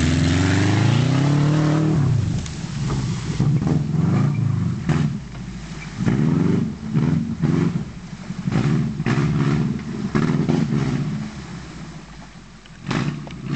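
Subaru car engine revving hard under load as it drives through mud and water. It climbs in pitch over the first two seconds, then rises and falls in repeated bursts, and grows fainter near the end.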